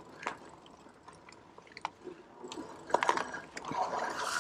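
HAOQI Cheetah full-suspension e-bike ridden over a rough dirt trail: scattered clicks and knocks from the tyres and bike going over the ground, with a cluster of sharp knocks about three seconds in and a crunching rustle near the end.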